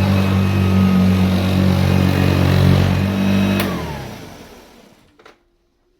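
Hoover Junior 1354A upright vacuum cleaner's motor running steadily, then switched off with a click about three and a half seconds in and winding down to a stop. Brand new and never used, it runs smoothly rather than dry.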